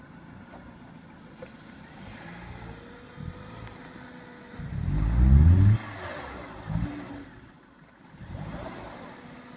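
Dodge Neon's four-cylinder engine running low under load, then revving hard with rising pitch for about a second as the car tries to get over an obstacle, and dropping back off, with a shorter rev a second later.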